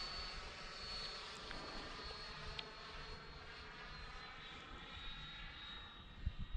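Electric ducted fan of a 90 mm RC F-18 jet on 12S, whining steadily at part throttle on its landing approach; the pitch eases down a little about four seconds in. A low rumble runs underneath, and there are a couple of low thumps near the end.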